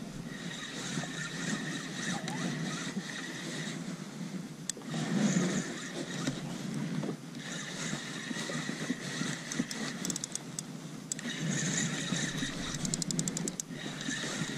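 Spinning reel being cranked in three spells with short pauses between, its gears giving a steady whir. Runs of quick clicks come twice near the end.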